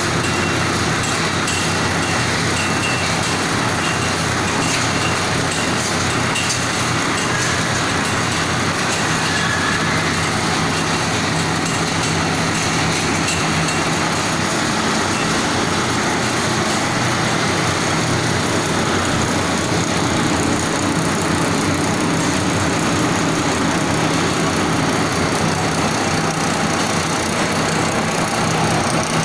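Wire drawing machine line running: a steady, unbroken machine noise with a low hum underneath.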